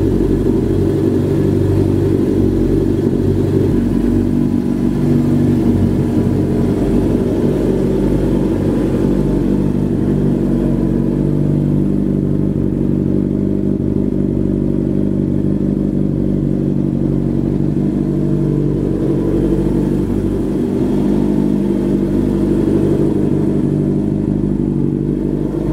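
Suzuki RF600R motorcycle's 600 cc inline-four engine idling steadily, heard close to its exhaust silencer.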